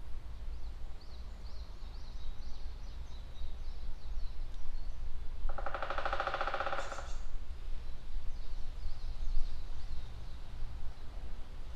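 A woodpecker drumming on a tree: a single rapid roll of strikes about a second and a half long, a little past the middle. Songbirds chirp faintly before and after it.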